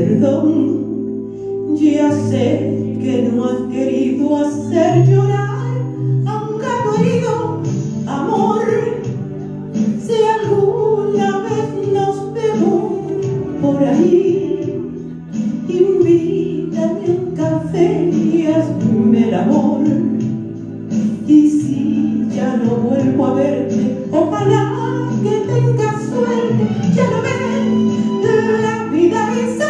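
A woman singing a Spanish-language ballad into a microphone over a karaoke backing track, amplified through the hall's sound system.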